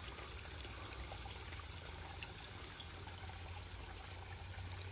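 Steady trickle of running water in a wash, with a low rumble underneath.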